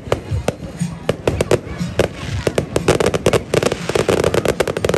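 Aerial fireworks going off overhead: a string of sharp bangs and pops that thickens into a dense, rapid crackle in the second half.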